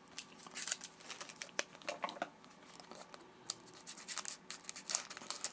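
2011-12 Panini Contenders hockey cards sliding and scraping against one another as they are flipped through by hand: a run of short, irregular scratches and clicks.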